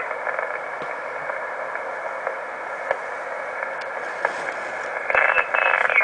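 Band noise from an Icom HF transceiver's speaker while it is tuned across the 80 m band in LSB: a steady, narrow hiss with scattered faint static clicks. About five seconds in it grows louder as a garbled single-sideband signal comes in.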